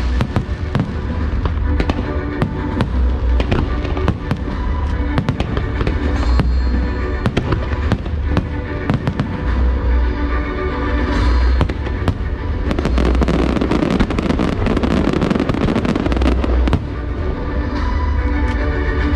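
Aerial fireworks bursting in quick succession, deep booms mixed with sharp bangs and crackling, over show music played alongside the display.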